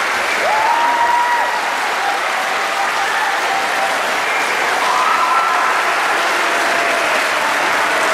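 Crowd applauding steadily, with a few held high-pitched calls ringing out over the clapping.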